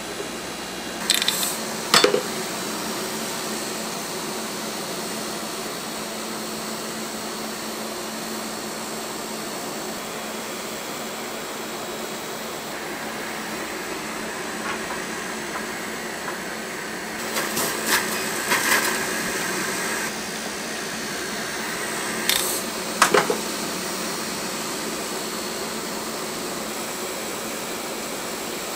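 Cotton candy machine running with a steady whir from its spinning head and motor. A few short sharp clicks cut in near the start and twice more later on.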